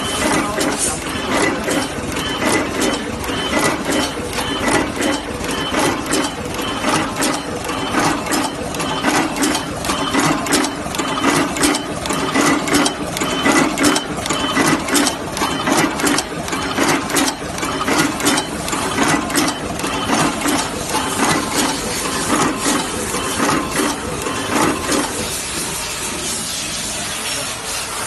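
EW-21C automatic two-wire crimping machine running: a dense, irregular clatter of clicks and knocks from its wire feed, cutting and crimping mechanism over a steady hum. About three seconds before the end the clatter stops and only the hum remains, as the machine halts with an out-of-wire warning for wire feed No. 1.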